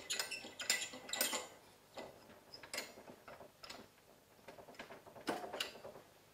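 Oxygen regulator being fitted onto an O2 cylinder: a string of light metal clicks and clinks, busiest in the first second or so, with a louder pair of knocks near the end.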